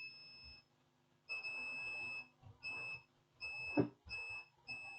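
Multimeter continuity buzzer beeping five times in short, uneven bursts as the probes touch the capacitors, the first beep about a second long; the beeping signals a short from the 19 V line to ground. A single soft knock comes just before the fourth beep.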